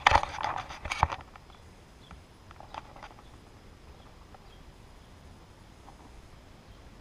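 Handling noise in the car's boot: a quick run of plastic clicks and rustling in the first second, with a sharper click about a second in, then a few faint ticks near three seconds over low background hiss.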